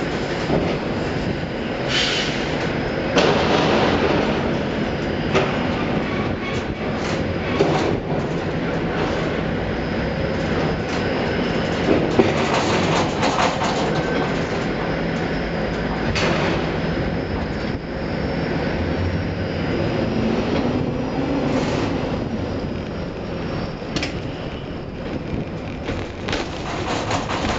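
Ship-to-shore container crane machinery running: a steady mechanical rumble and hum with scattered metallic clanks and rattles while the spreader works in the ship's cell guides and is then hoisted away.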